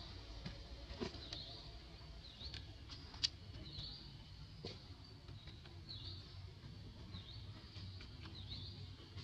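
A small bird chirping in the background, short high chirps about once a second, over a low steady rumble; one sharp click a little over three seconds in.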